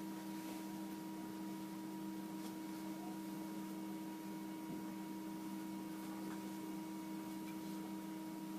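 A steady electrical hum with several fixed pitches, over faint room hiss; no other distinct sound.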